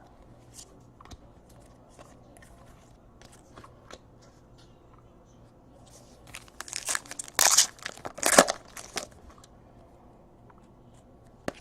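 Trading-card packaging handled: a few light clicks of cards being handled, then about two and a half seconds of loud crinkling and tearing of wrapper or plastic, starting about six and a half seconds in.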